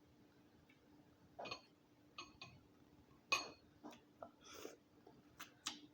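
Close-miked eating of a boiled Dungeness crab: about nine short, separate cracks, clicks and mouth sounds of shell being broken and meat chewed. The loudest crack comes about three and a half seconds in.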